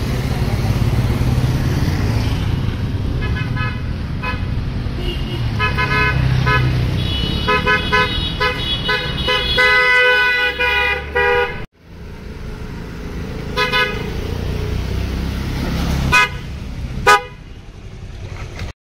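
Hella twin-tone horns on a Honda Activa scooter sounding in a string of short honks and a few longer blasts, over the low rumble of the scooter and street traffic. The horn sound cuts out briefly about two-thirds of the way through, then resumes with a few more honks.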